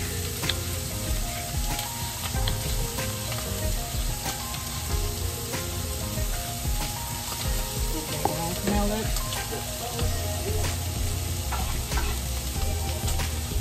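Onions frying in oil in a stainless steel pan, a steady sizzle, with occasional light knife taps on a wooden cutting board as a pepper is sliced.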